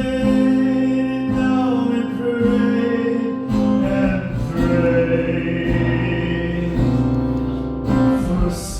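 A man singing over guitar, holding long notes as the chords change underneath.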